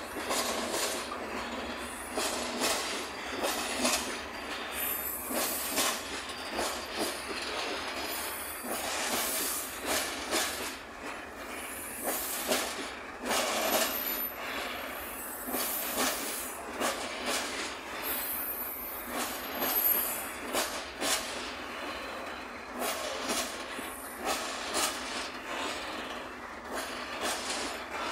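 Long freight train of open-top gondola wagons rolling past, wheels knocking over the rail joints in an uneven run of clacks, with brief high wheel squeals about halfway through and again later.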